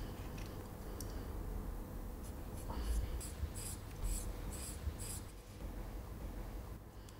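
Small craft-knife blade scratching into graphite-covered drawing paper. About two seconds in come a run of about six short, quick scrapes, over a faint low rumble.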